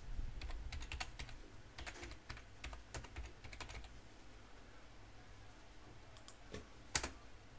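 Typing on a computer keyboard: a quick run of keystrokes for about four seconds, then a few scattered taps and one sharper click about seven seconds in.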